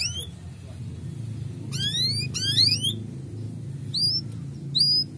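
Male canary giving sharp rising 'cuit' calls. There is one near the start, two quick runs of rapid rising notes around two and two and a half seconds in, and single calls about four seconds in and near the end, over a steady low hum.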